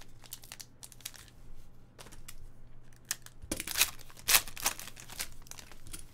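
Trading card pack wrappers crinkling and cards being handled: a run of sharp rustles and clicks, loudest about four seconds in.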